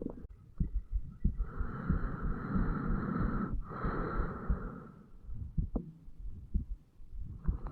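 A long breath in and out, with a faint whistly edge, heard through a recorder pressed to the chest over the mitral valve area, with the heart's low thuds beating under it. The breath has a short break in the middle.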